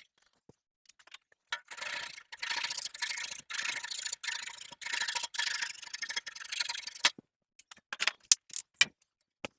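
Rhythmic scraping or rubbing strokes on wood, about two a second, stopping about seven seconds in, followed by a few sharp clicks and knocks.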